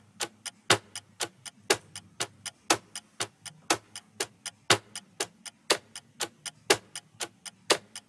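Quiz countdown timer's clock-tick sound effect: about four ticks a second, with a louder tick once each second.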